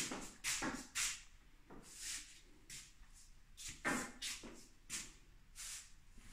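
Footsteps and scuffs on a hard tiled floor, about one or two a second, with sharper knocks at the start, just before a second in, and about four seconds in.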